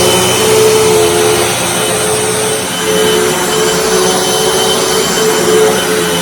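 Hoover WindTunnel T Series bagged upright vacuum cleaner running steadily, a loud rush of air with a motor whine.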